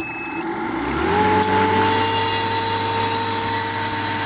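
Fieldpiece refrigerant recovery machine being switched on: a short beep as its button is pressed, then its motor spins up, rising in pitch over about a second, and settles into a steady running hum as it starts pumping refrigerant out of the system into the recovery tank.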